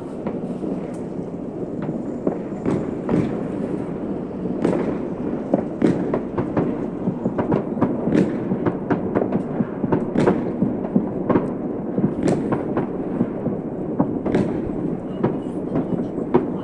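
Distant fireworks going off across a city: irregular bangs and crackles, with sharper reports every couple of seconds, over a steady rushing background noise.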